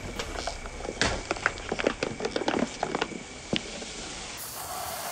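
Plastic soda bottles crackling and popping as a car tyre crushes them, a quick run of sharp clicks and crunches. Near the end comes a steady hiss of cola foaming out of the split bottles.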